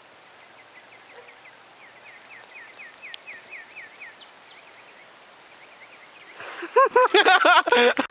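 A bird chirping over and over, about four short chirps a second, for the first few seconds. Near the end comes a loud burst of a person's voice, a run of short rising-and-falling sounds, by far the loudest part.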